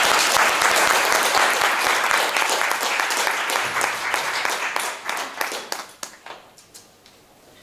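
Audience applauding at the end of a talk, a dense clapping that thins to a few scattered claps and dies away about six seconds in.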